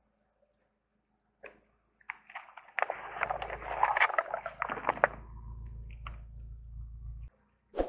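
Stacked paper cups crunching and crackling as a car tyre rolls over and flattens them, a dense burst of cracks about three seconds in, with the car's low rumble underneath. A short ringing hit comes near the end.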